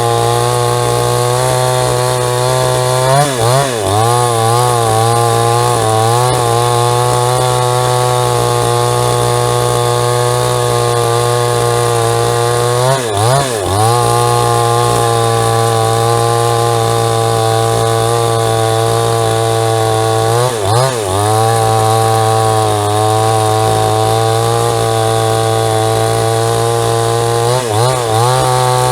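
JCK chainsaw with a 22-inch bar running hard while sawing a log. Its engine note holds steady but dips briefly and recovers about four times.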